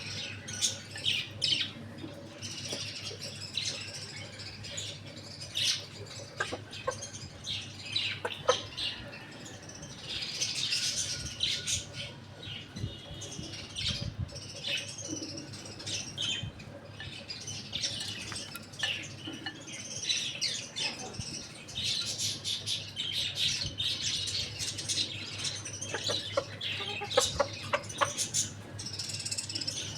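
Many birds chirping and calling in short, overlapping calls, busiest about a third of the way in and again in the second half, over a steady low hum.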